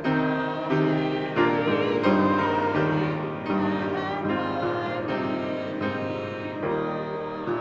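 Piano playing slow, sustained chords under a voice singing with vibrato: church music.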